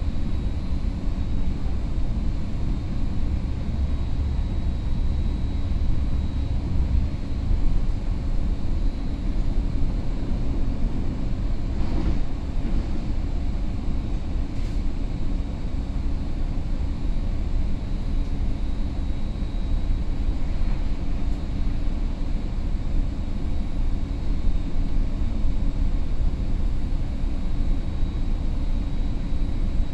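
Caltrain Stadler KISS electric multiple unit heard from inside the car while running at speed: a steady low rumble of wheels on rail, with a faint steady high tone over it. A brief click about twelve seconds in.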